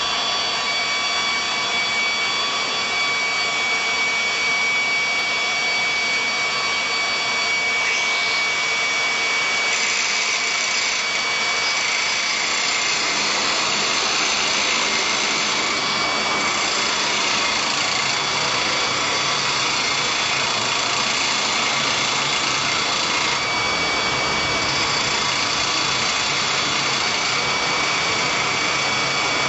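Angle grinder shaping a small bronze piece that a drill clamped in a vise spins, lathe-fashion. A steady high motor whine with a grinding hiss that grows brighter about ten seconds in and shifts again twice later.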